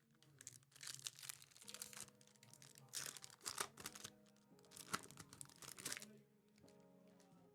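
Plastic packaging crinkling and tearing in several rough bursts as a pack is ripped open by hand, over soft background music.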